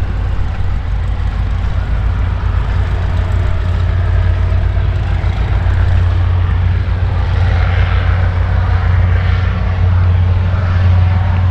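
Cessna 152's four-cylinder Lycoming piston engine and two-blade propeller running at a steady low speed, a constant low drone.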